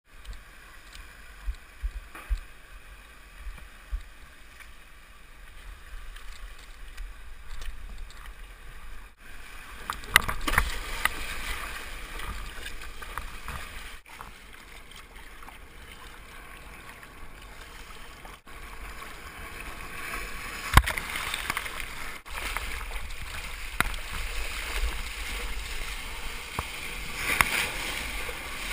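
Water sloshing and splashing around a surfboard as it is paddled and ridden through whitewater, with low wind rumble and a few sharp knocks. The sound grows louder and splashier about a third of the way in.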